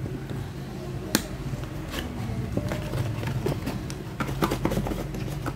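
Small cardboard product boxes and rubber washing-machine feet being handled on a hard surface: two sharp clicks in the first two seconds, then softer knocks and rustling near the end, over a steady low hum.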